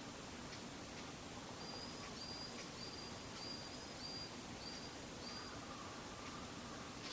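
Varied tit calling: a series of about seven short, high, level whistled notes, roughly two a second, starting about a second and a half in and stopping near the end. Faint, from a bird high up and out of sight.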